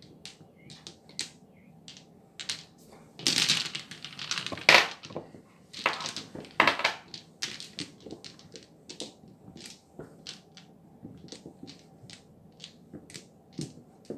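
Mahjong-style Peeper game tiles clicking and clacking together on a mat-covered table as hands gather and line them up, with louder clattering runs a few seconds in and again around the middle.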